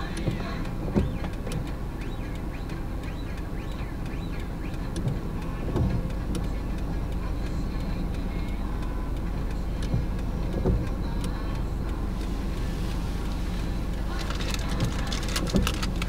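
Heard from inside a car's cabin, its engine idles with a low, steady hum while it waits at a light, with a few soft knocks. In the last few seconds the tyres of passing cars hiss on the wet road.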